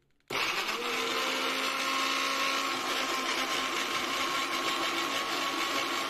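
Philco blender running steadily, chopping peeled garlic cloves, with an even motor hum. It starts a moment in, after a brief silence.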